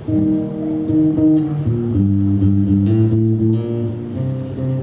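Guitar playing the introduction of a folk song, strummed chords that change about every second.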